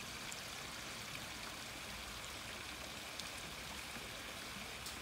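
Steady trickling and splashing of water in an elephant's pool, with a few faint ticks.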